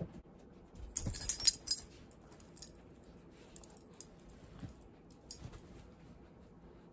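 Light jingling and clicking of small hard objects, loudest in a short flurry about a second in, followed by a few scattered clicks.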